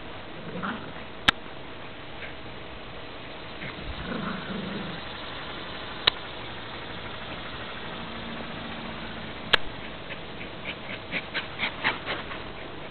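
Chinese crested dogs at play, giving a couple of short low barks over steady background noise. Three sharp clicks stand out, and near the end a quick run of short sounds comes as a dog reaches the camera.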